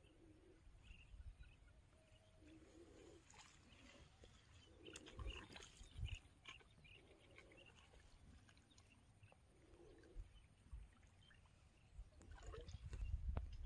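Quiet open-air ambience: faint bird calls, low ones recurring every couple of seconds with a few higher chirps, and a low rumble that grows louder near the end.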